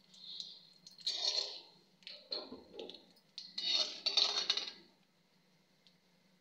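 Metal spatula scraping and stirring against the bottom of a kadhai in hot oil with mustard seeds, a few separate strokes that stop about five seconds in.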